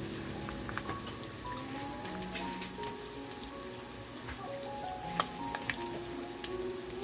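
Eggs frying in hot oil in a cast-iron skillet, sizzling steadily with scattered crackles and pops, one sharper pop about five seconds in. Quiet background music with a melody plays underneath.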